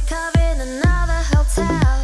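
Background electronic dance music with a steady beat of about two beats a second under synth chords.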